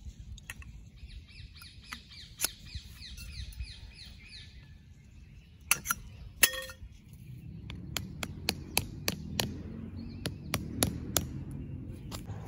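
Aluminium tent poles clinking against each other as they are handled, a quick run of sharp clinks in the second half. About a second in, an African ringneck parrot calls in a fast run of high chirps for a few seconds.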